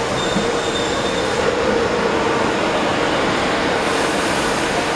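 Metro-North M8 electric multiple-unit commuter train rolling alongside the platform as it pulls into the station: steady rumble of wheels on rail with a constant mid-pitched tone, and a brief high squeal in the first second.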